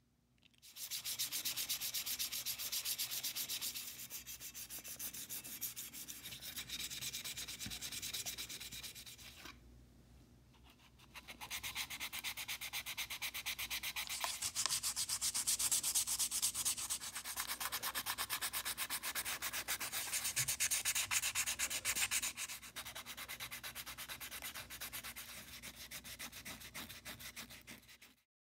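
Hand sanding with sandpaper in quick back-and-forth strokes, in two long spells with a short pause about nine seconds in. The second spell is on the hand plane's wooden knob.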